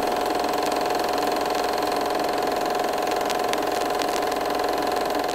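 Film projector running, a steady mechanical whir with a constant tone and a few faint clicks, starting to fade near the end.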